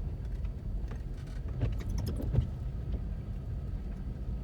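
Car interior noise while driving slowly: a steady low rumble of road and engine, with a few faint brief sounds about two seconds in.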